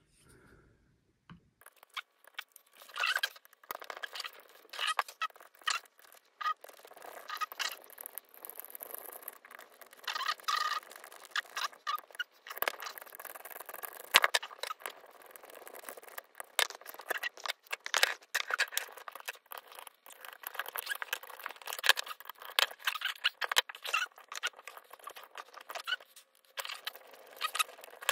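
Irregular clicking, ticking and scraping of hand tools and small parts: a hex driver working screws on a plastic RC car chassis while small pieces are handled and set down.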